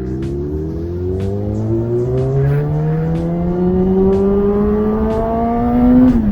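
Kawasaki ZX-6R inline-four motorcycle engine pulling hard, its pitch climbing steadily through a gear. Near the end the pitch drops sharply as it shifts up.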